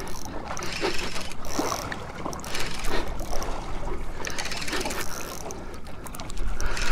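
A fishing reel being wound in on a hooked fish, its gears turning with a light mechanical clicking, over water slapping against a small aluminium boat.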